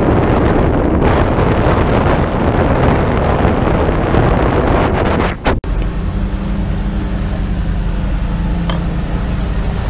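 Wind buffeting the microphone of a motorboat running at speed. About halfway through, the sound cuts off abruptly and is replaced by the steady low drone of the boat's outboard motor, with much less wind.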